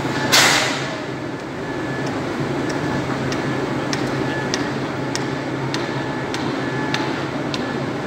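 Steady low machine hum over a noisy background, with a short hiss about a third of a second in and scattered light ticks.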